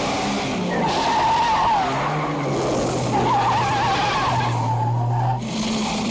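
Car tyres squealing in two long, wavering squeals as cars corner hard in a chase, over the sound of engines running at speed.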